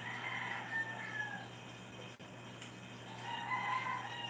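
A rooster crowing twice, each crow lasting about a second and a half, the second starting about three seconds in.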